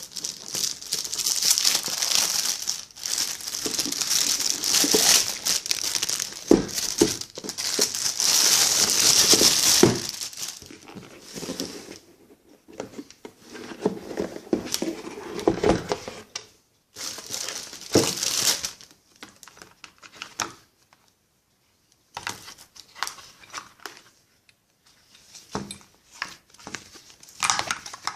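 Packaging being unwrapped by hand, crinkling and tearing. It is continuous for about the first ten seconds, then comes in short bursts with pauses between.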